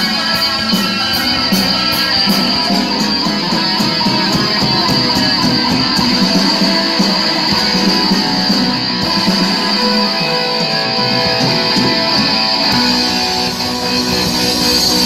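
Live rock band playing: electric guitars strummed over drums, with a run of regular cymbal-like ticks during the first few seconds.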